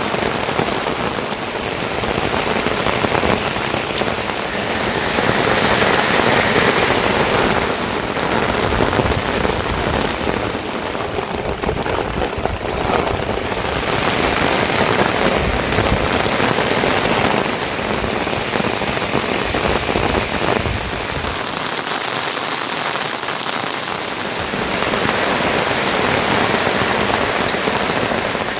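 Heavy rain falling steadily, a dense hiss of drops that swells and eases slightly in loudness.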